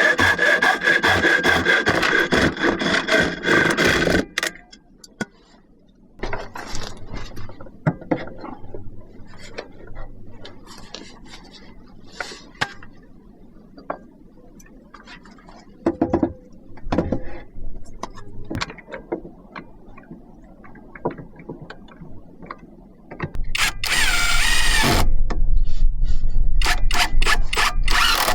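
Woodworking: wood being sawn with fast rhythmic strokes for about four seconds, then scattered knocks and scrapes of boards being handled. Near the end a power tool runs loudly with a whine and rapid clicking.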